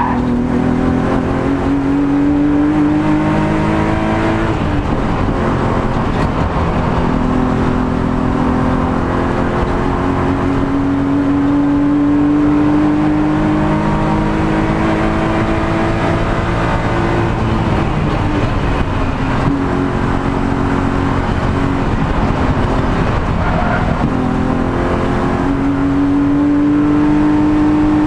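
BMW E36 race car's M52B25 2.5-litre straight-six under full throttle, heard from inside the stripped cabin. The engine note climbs in long sweeps, dropping sharply about four seconds in and again about seventeen seconds in as the driver shifts or lifts, then climbs again near the end.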